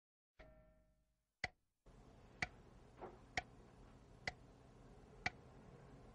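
Analog alarm clock ticking, one sharp tick about every second. A brief fading tone sounds about half a second in, before the ticking starts.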